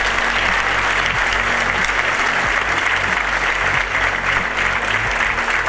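Audience applauding: a large seated crowd clapping, dense and steady throughout.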